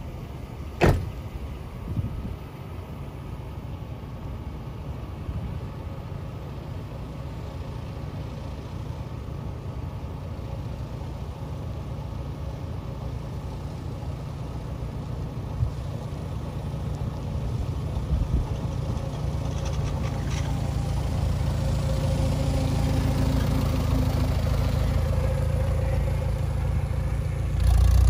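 Antique farm tractor engine running steadily as the tractor drives closer, a low rumble that grows louder throughout and jumps up sharply as it reaches the microphone near the end. A single sharp knock sounds about a second in.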